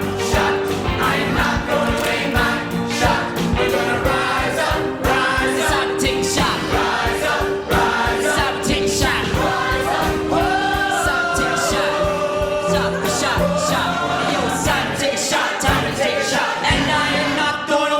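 A choir singing with accompaniment, a long note held under the voices through most of the passage.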